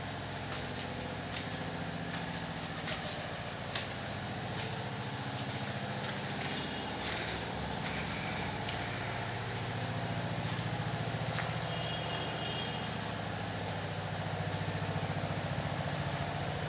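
A motor running steadily with a low hum, with scattered small clicks and taps over it.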